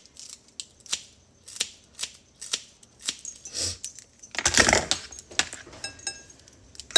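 Kitchen scissors snipping green onions: a quick run of crisp snips, two or three a second, for about three seconds. A louder handling clatter follows about four and a half seconds in.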